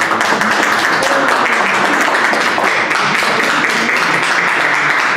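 A group of people applauding: dense hand clapping that starts suddenly and keeps up steadily.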